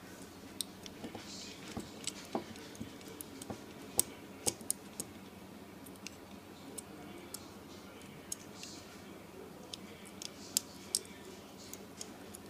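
Faint, irregular small metallic clicks and ticks as a thin aluminium shim cut from a drink can is worked down the side of a Master Lock 175 combination padlock.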